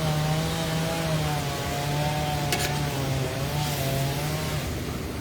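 An engine running with a steady hum that wavers slightly in pitch, cutting out near the end. A short click sounds about halfway through.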